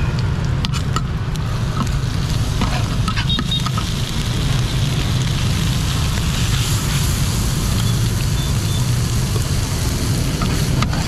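Bột chiên (fried rice-flour cake) and scallions sizzling in oil on a large flat iron pan over a steady low rumble, with occasional clicks and scrapes of a metal spatula against the pan.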